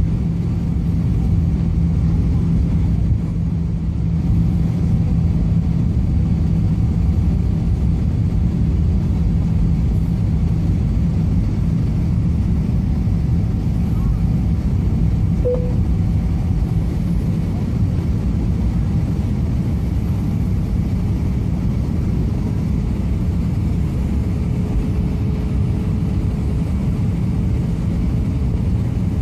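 Jet airliner cabin noise heard from a window seat on descent: a steady low rumble of engines and airflow. A steady low hum in it fades out a little past halfway, and a faint higher tone comes in later.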